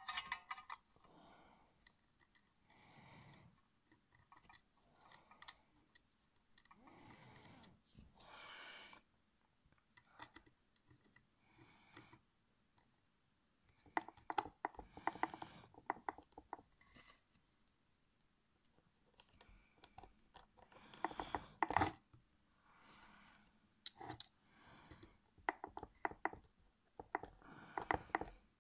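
Precision Torx screwdriver turning a small screw in a 2.5-inch hard drive's metal casing: scattered bursts of quick clicking and scraping of the bit in the screw head, with quiet gaps between, busiest from about halfway through.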